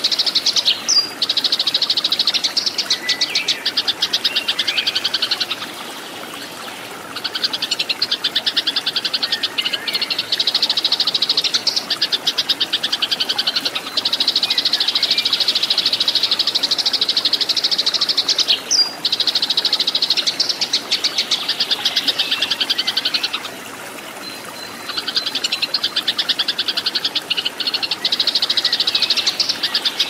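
Sparrows chattering in fast, dense strings of high chirps, the squabbling chatter of fighting sparrows, breaking off briefly twice.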